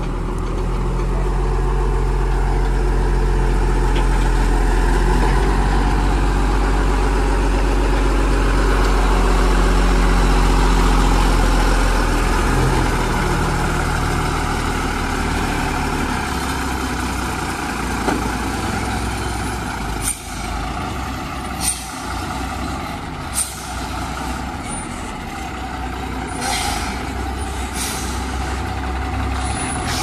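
Heavy diesel engine running loud and steady for about twelve seconds, then easing off. From about twenty seconds in come several short, sharp bursts of noise.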